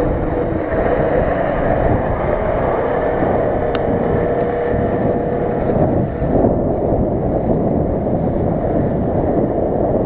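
Nissan Patrol SUV engine running as it drives away through dry grass, mixed with steady wind rumble on the microphone.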